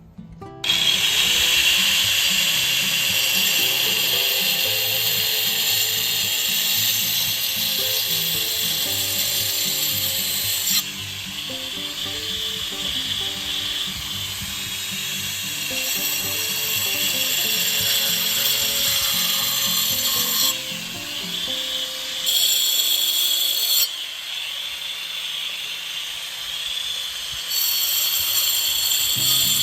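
Background music with a steady high-pitched rasping noise over it, which changes abruptly several times.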